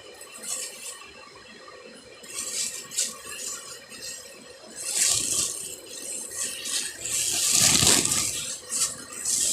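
Grocery packages being handled: irregular rustling and rattling with light clinks, loudest in a long rustle around three-quarters of the way through.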